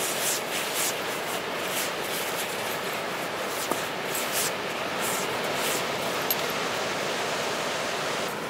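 A dog digging in beach sand with its front paws: quick, irregular scratching swishes of sand being flung, over a steady background rush.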